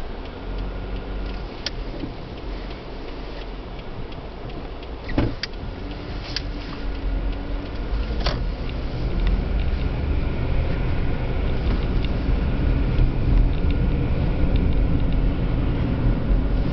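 Car engine and road noise heard from inside the cabin, with a few sharp knocks in the first half. The noise grows louder from about halfway through as the car picks up speed.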